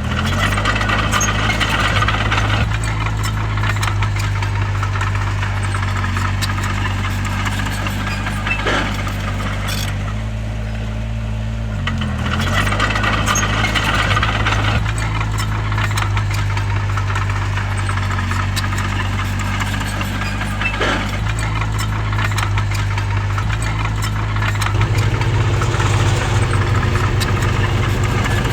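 Bulldozer's diesel engine running steadily under load, its pitch dipping and picking up again twice, with metal clanks and rattles throughout. Two stretches of rasping noise, at the start and about twelve seconds in, fit stone being pushed by the blade.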